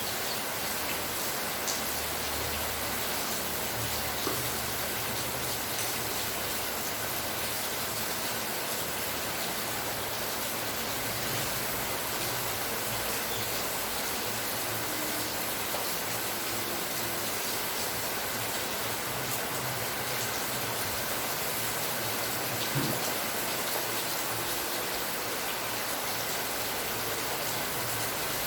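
Steady rain falling, an even hiss with occasional faint ticks of drops.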